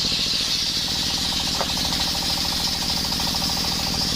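Engine-driven circular saw mill running with a steady rhythmic chug, and a high, steady hiss from the blade sawing through a coconut-wood beam.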